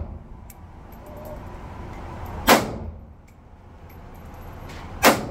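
Two rifle shots about two and a half seconds apart, each a sharp crack with a short echo off the concrete of an indoor range. Faint clicks sound between the shots.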